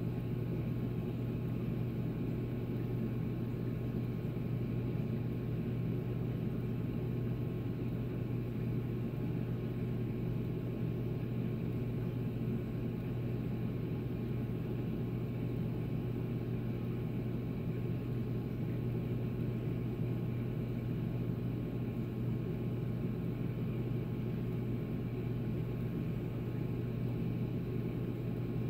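Reef aquarium equipment running: a steady low electric hum with an even hiss, unchanging throughout.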